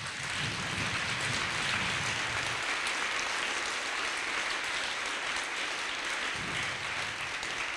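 Large audience applauding, a dense, steady clapping that eases off slightly near the end.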